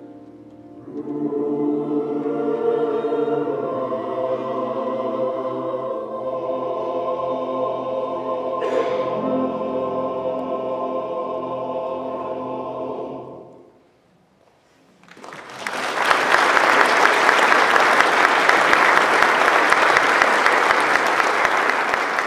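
Mixed choir of men's and women's voices singing a long-held closing chord that cuts off together about thirteen seconds in. After a second of silence the audience breaks into loud applause.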